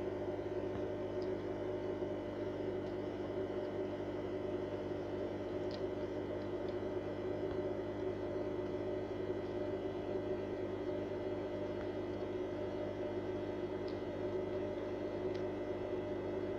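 A steady electrical hum that holds at a constant level, with a few faint ticks.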